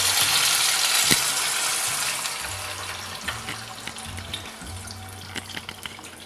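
Hot oil with fried fava bean paste, garlic and ginger sizzling as chicken stock is poured into the pot. The sizzle is loud at first and dies down steadily over a few seconds, leaving the splash and trickle of the pouring stock.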